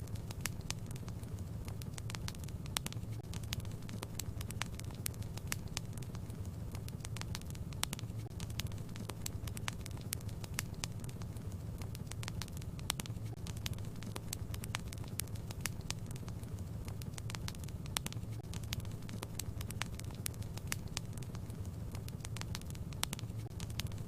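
Wood fire in a fireplace crackling, with frequent irregular sharp pops over a steady low rumble of the flames.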